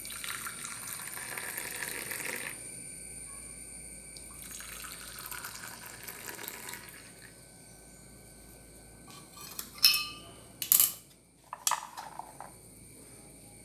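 Hot milky kashaya poured from a steel pan into two ceramic mugs in turn: two splashing pours of about two seconds each. About nine seconds in come several sharp clinks and knocks, the loudest sounds.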